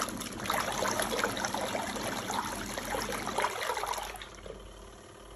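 Water pouring and trickling, dying down about four seconds in.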